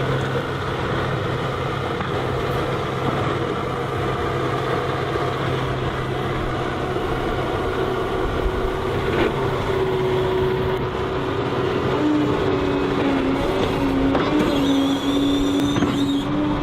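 Heavy machine engine running steadily under load, with a whining tone that comes in and shifts in pitch in the second half.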